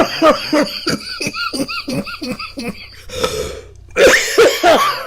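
A man's coughing fit: a rapid run of short hacking coughs in quick succession, then a louder cluster of heavier coughs about four seconds in.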